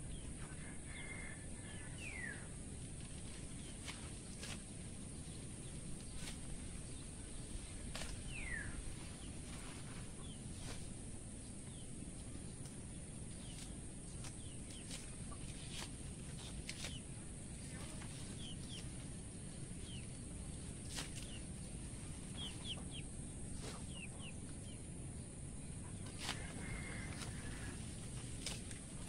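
Backyard farm ambience: chickens and small birds calling now and then, a few short falling calls and quick chirps, over a steady low rumble, with scattered faint clicks.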